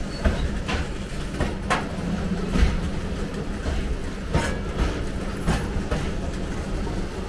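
Passenger train running along the track: a steady low rumble with irregular sharp wheel clacks over the rails.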